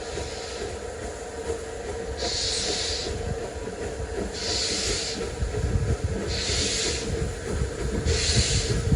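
Steam locomotive working slowly, with a regular hissing beat about every two seconds over a steady low rumble.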